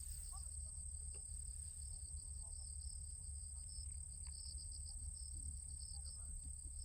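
Crickets or other insects chirring faintly: one continuous high-pitched trill, with a second insect's rapid pulsing chirps just below it. A low steady rumble runs underneath.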